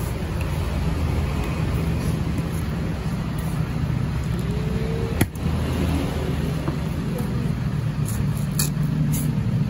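Busy market background with a steady low engine-like rumble, and one sharp knock about halfway through as a heavy curved cleaver strikes the wooden chopping block; a few fainter clicks follow near the end.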